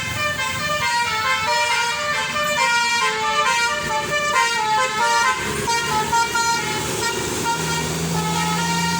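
A tour bus's multi-tone telolet 'basuri' horn playing a quick melody of stepped notes for about five seconds. The horn then gives way to the bus's engine noise, with a steady low hum for the last second or so.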